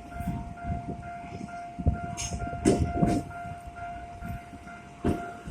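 Level-crossing alarm ringing steadily with about three strikes a second, while a Ginza Line subway train rolls over the crossing, its wheels clacking over the rail joints in pairs about two to three seconds in.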